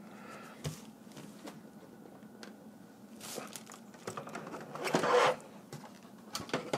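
Handling noises as a laptop is lowered onto a plastic laptop cooling pad: a few faint clicks, a short brushing or sliding noise about five seconds in, the loudest sound, and a couple of light knocks near the end as it settles.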